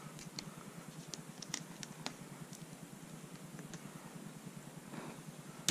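Faint, scattered light clicks and taps from hands handling a removed aluminium-and-plastic lower intake manifold and its gasket, bunched in the first two seconds or so.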